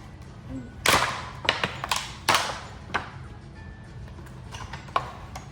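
Plastic wrapping being torn and crinkled off a Mini Brands capsule ball: a run of sharp crackles and snaps, loudest about a second in and again a little after two seconds, with a few single clicks later.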